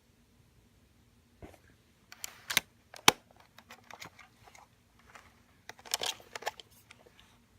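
Handling noise from a plastic Panasonic camcorder being turned over: scattered clicks and short rustles, with a sharp click about three seconds in and a cluster of clicks near the end, over a faint steady hum.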